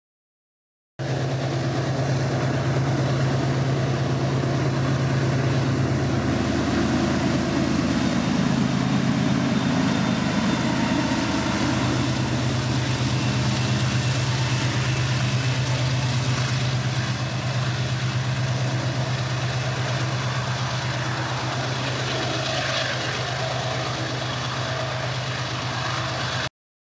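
GE ES30ACi diesel-electric locomotives running past under power, a steady low engine note from their diesels.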